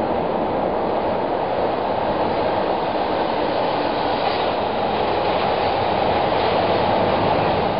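Subway train coming out of the tunnel and running in alongside the platform: a steady, loud noise of wheels on rail that grows a little louder in the last couple of seconds.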